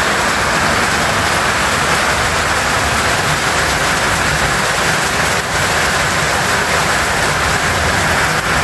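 Heavy rain pouring down on a corrugated roof, a dense steady hiss with no let-up.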